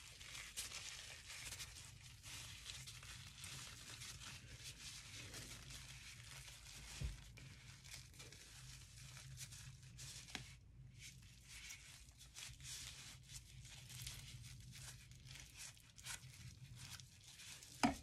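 Faint crinkling and rustling of a piping bag being twisted and squeezed in gloved hands, with scattered small clicks over a low steady hum. There is a soft knock about seven seconds in and a sharper click near the end.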